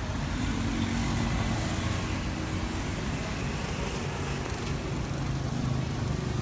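A motor vehicle's engine running steadily, a low hum under a steady hiss, with the hum dropping lower about halfway through.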